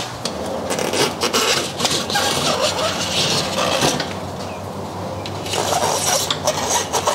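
Plastic tire levers prying a knobby mountain-bike tire's bead off an aluminium rim, the rubber scraping and rubbing against the rim with now and then a sharp click.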